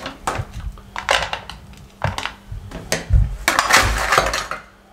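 Hard, set sesame-jaggery brittle pieces being lifted out of a stainless steel tray with a knife and laid on a ceramic plate: a run of clinks, scrapes and clatters, busiest about three and a half seconds in.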